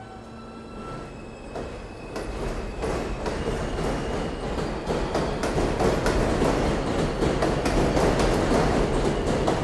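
R160A-1 subway train on an elevated track, pulling away with a faint whine that steps up in pitch in the first few seconds. The rhythmic clickety-clack of its wheels over the rail joints then grows steadily louder as it picks up speed.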